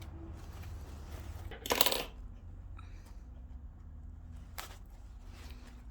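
A small hard object clinks and rattles down onto the work surface about two seconds in, followed by a fainter click later on, over a steady low hum.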